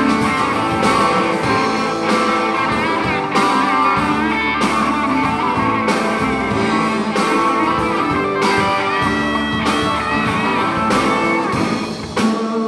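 Live band playing music with guitar to the fore, over a steady beat that strikes about every second and a bit.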